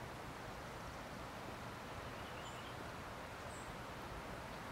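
Steady outdoor background hiss, with two faint, short high-pitched sounds a little past halfway.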